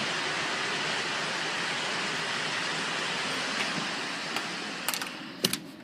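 Storm wind blowing steadily, a wall of rushing noise. Near the end it eases off and a few sharp clicks are heard.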